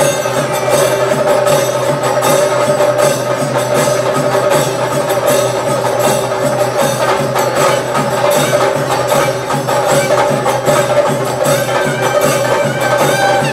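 Chende drums, cylindrical drums beaten with sticks, played in a loud, fast and dense rhythm, with a steady held tone sounding over the drumming.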